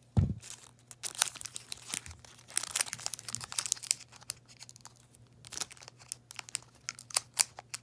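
Foil trading-card booster pack wrapper being torn open and crinkled, a run of irregular crackles and rips, with a dull thump just after the start.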